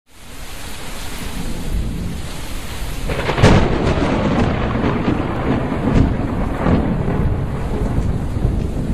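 Rain and thunder: a steady rain hiss fades in, a loud thunderclap cracks about three and a half seconds in and rumbles on, and lighter cracks follow around six seconds.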